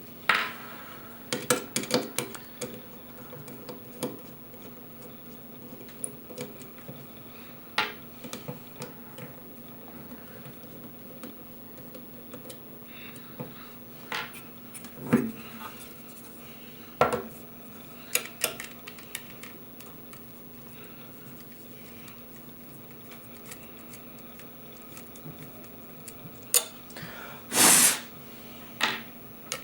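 Scattered metallic clinks, clicks and knocks of computer case hardware being handled, as when drive trays and parts are taken out of a server's drive cage, with a short scraping rasp near the end. A steady low electrical hum underlies it.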